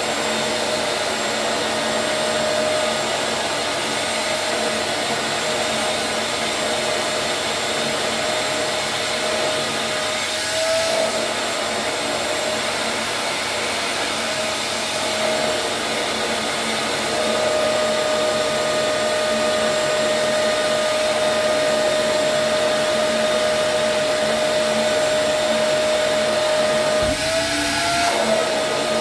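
Wet-and-dry vacuum cleaner running steadily, pulling the wrap film down onto the steering-wheel part. The motor whine holds one pitch and briefly rises twice, about ten seconds in and near the end.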